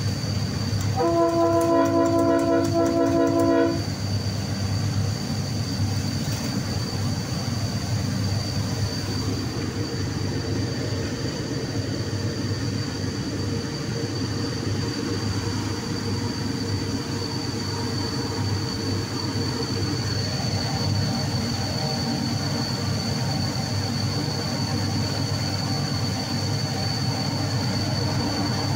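Diesel locomotive's multi-tone horn sounding one blast of nearly three seconds, heard from inside the cab. The horn is followed by the steady low rumble of the engine and the running noise of the train at slow speed, with a faint steady high whine throughout.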